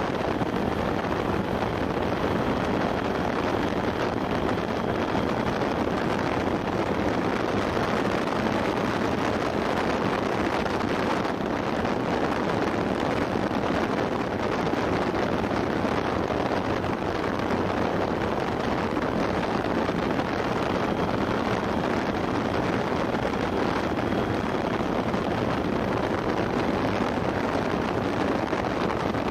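Motorcycle cruising steadily at about 40 mph: a continuous rush of wind on the microphone over the engine and road noise, with no change in pace.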